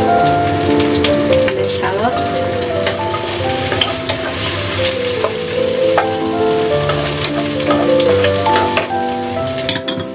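Chopped garlic and shallots frying in hot oil in a stainless steel wok, with a steady sizzle, and a wooden spatula scraping and tapping the pan as it stirs. Soft background music with held notes plays underneath.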